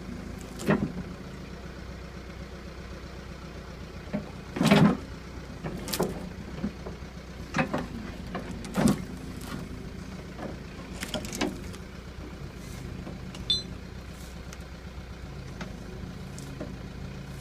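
Backhoe engine idling steadily, with about a dozen sharp knocks and clanks scattered over it, the loudest a little under five seconds in.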